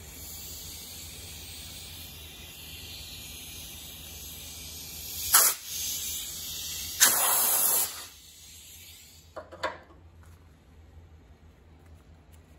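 Compressed air hissing from an air blow gun, steady for several seconds, with two louder blasts about five and seven seconds in. It stops, and a couple of light clicks follow.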